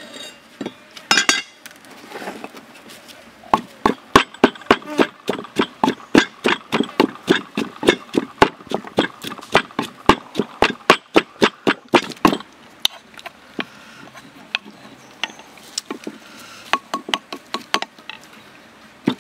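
Pestle pounding garlic and fresh chilies in a wooden mortar: a fast, even run of knocks at about four a second, lasting some nine seconds, with a few scattered knocks before and after.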